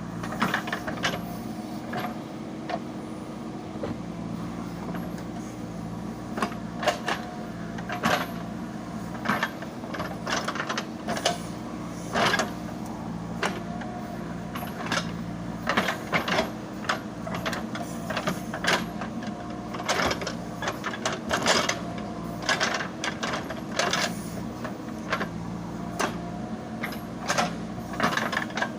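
JCB 3DX Super backhoe loader's diesel engine running steadily under load, with frequent irregular clanks and knocks from the digging gear working earth and stones.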